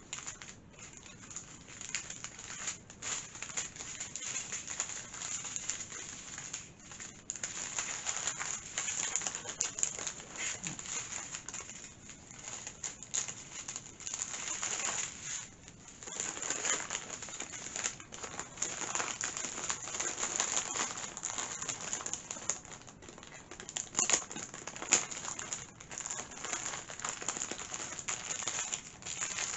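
Plastic packaging of a diamond-painting kit, small bags of drills, rustling and crinkling in irregular spells as it is handled and packed away.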